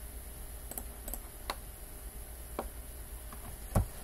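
A handful of sharp, scattered computer mouse clicks, about six in all, the loudest one near the end, over a low steady hum.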